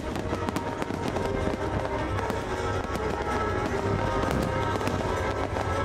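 Aerial fireworks bursting and crackling in quick succession, with the display's soundtrack music playing.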